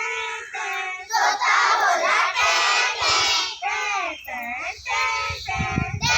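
A group of children chanting together in a sing-song way, in a string of short, rising and falling phrases.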